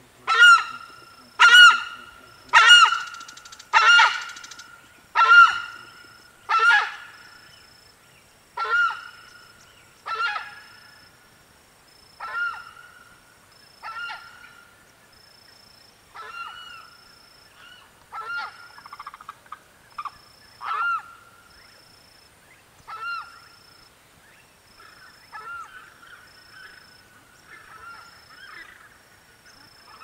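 Rufescent tiger heron giving a long series of calls. They come loud and about one every 1.2 seconds at first, then grow further apart and fade. A cricket chirps in an even, regular pulse in the background.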